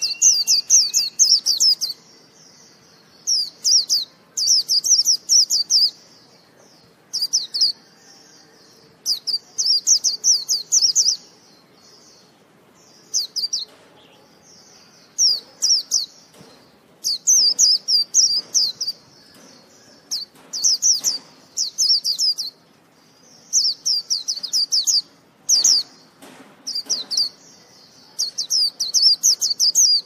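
Japanese white-eye singing in phrases of rapid, high twittering notes. Each burst lasts one to three seconds, and they follow one another after pauses of about a second.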